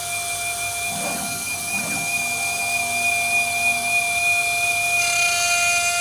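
CNC glass machining centre's spindle running with a steady high whine made of several fixed tones, with two short, rougher sounds about one and two seconds in.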